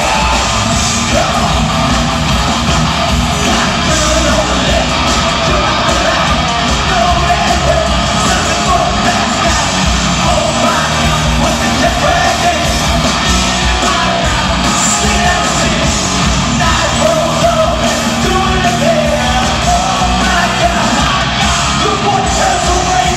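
Glam-metal band playing live in an arena: loud electric guitars and drums with singing and yelling over them, recorded from within the audience.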